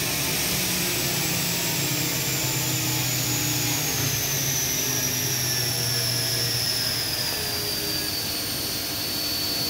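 Hurco VMX-42 machining center's direct-drive spindle running at high speed: a high whine that falls steadily in pitch over about eight seconds, then holds level, over a low machine hum.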